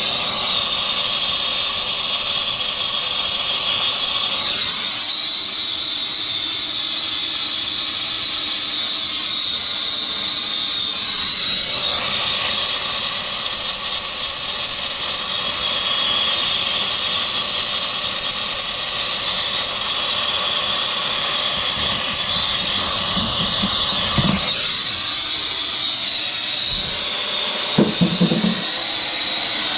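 Air-acetylene torch with a small A-3 tip burning with a steady hiss and a high whistling tone, heating a copper fitting to sweat off an old valve. A few short knocks near the end.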